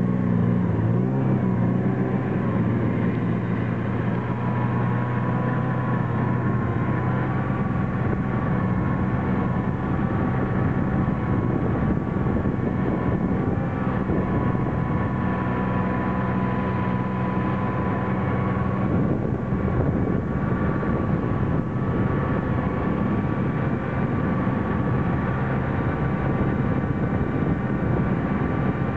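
Snowmobile engine running steadily at cruising speed, heard from on board as the machine travels along a packed snow trail.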